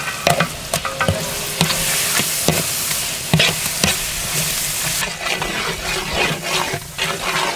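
Ground red chili paste frying with onion-tomato masala in hot oil in a large metal pot, sizzling steadily. A long metal ladle scrapes and knocks against the pot as it is stirred, the clicks coming faster near the end.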